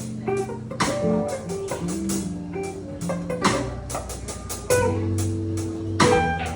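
Live blues band playing an instrumental passage: guitar lines over upright bass and drums, with regular drum hits.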